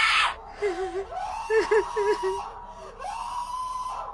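A woman screaming in distress, then crying out in wavering, whimpering wails and finally one long high cry.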